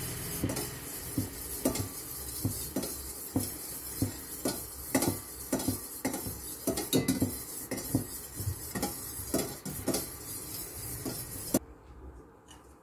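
Metal spoon stirring milk in a stainless steel bowl on a gas burner, scraping and clinking against the bowl about twice a second. A steady hiss underneath cuts off suddenly near the end.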